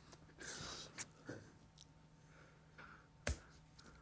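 Hushed room with stifled breathing and rustling from people trying to keep silent, and one sharp slap about three seconds in: a two-finger slap on the neck.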